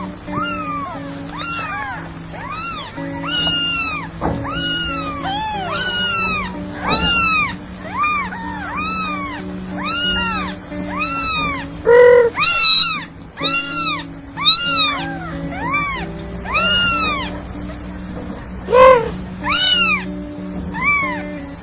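A kitten meowing over and over, high arching meows about one a second, some louder than others, over background music.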